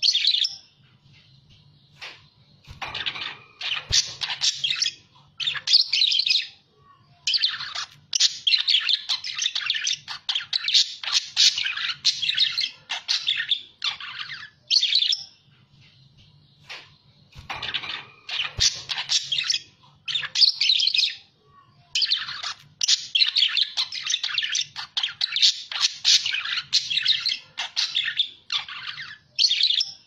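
Budgerigars chattering and warbling in busy bouts of rapid, high chirps, each bout several seconds long, broken by short pauses.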